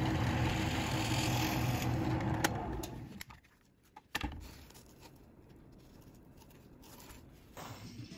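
Drill press running while a wood bit bores the centre hole through a wooden gear's hub, for about three seconds, then the motor winds down. A sharp click follows a second later, then only faint low noise.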